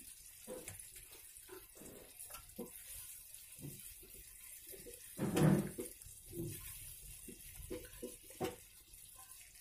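Wooden spatula stirring and scooping thickened milk in a nonstick pan: wet sloshing and small splashes with irregular light clicks. The loudest slosh comes about five and a half seconds in.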